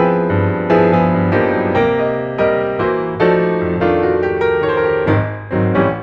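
Background piano music: a steady run of notes struck about every half second over held lower notes.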